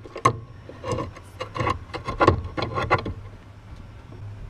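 Irregular metal clicks and knocks of a long pipe cheater bar being fitted over a breaker bar and levered on the socket, working at a shock absorber nut too tight for the air ratchet; the clicks thin out after about three seconds.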